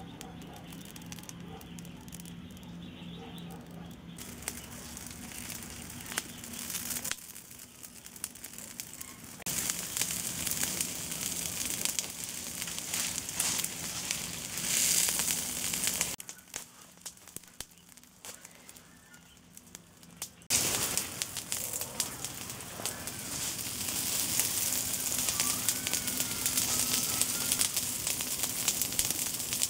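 Pile of dry leaves burning after being lit with a lighter: a dense crackle of many small pops that grows louder as the flames take hold, drops back for a few seconds past the middle, then returns strongly.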